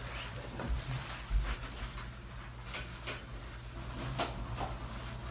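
Scattered light knocks, clicks and rustles of someone handling things while cleaning and setting up a dental operatory, over a steady low hum.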